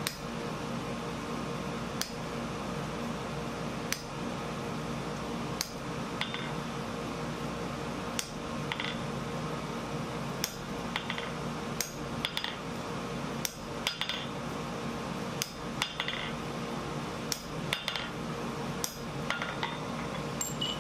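Hand hammer striking a punch held on hot steel on an anvil, about twenty sharp metallic taps with a short ring, a couple of seconds apart at first and then coming faster, over a steady hum.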